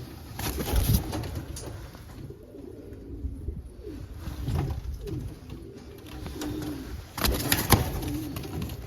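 Homing pigeons cooing repeatedly in low, throaty calls, with a few sharp knocks or wing flaps about a second in and a louder cluster of them near the end.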